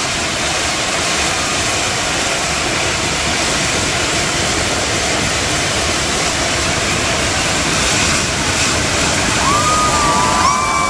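Kambam fireworks tower in full burn: many fountain fireworks spraying sparks at once, making a loud, steady rush of hissing and crackling. A few whistling tones come in near the end.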